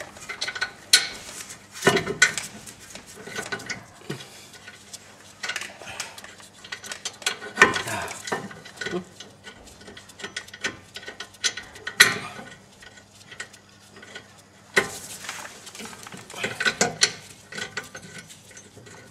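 Scattered metallic clicks and knocks from a rusty rear brake caliper being shifted by hand against its bracket while the bottom bolt is lined up and started into its thread, with a few sharper knocks among them.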